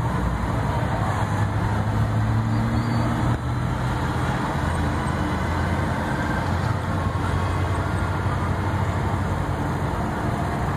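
Steady street traffic: a continuous rumble of vehicle engines with a low droning hum, which shifts slightly in pitch about three and a half seconds in.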